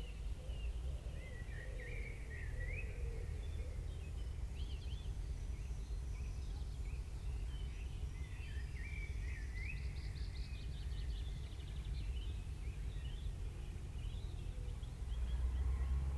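Small birds chirping and singing on and off over a steady low rumble of outdoor background noise.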